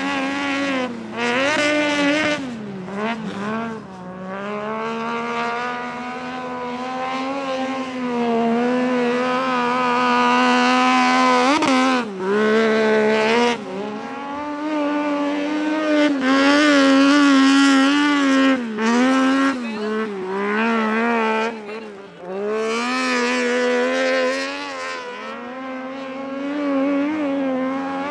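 Triumph 675 three-cylinder motorcycle engine in a Piaggio Ape Proto three-wheeler, revving hard around a snow track. The revs climb and fall repeatedly through the corners, with sharp throttle lifts about twelve seconds in and again near twenty-two seconds.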